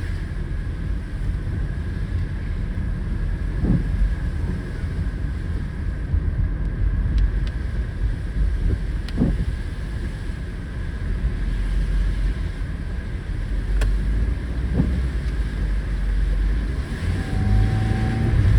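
Car driving, a steady low road and engine rumble.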